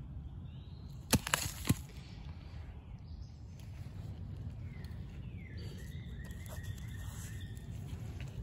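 Three sharp cracks about a second in as a bamboo shoot is broken off by hand among dry leaf litter. Later, faint bird calls with short gliding whistles sound over steady low background noise.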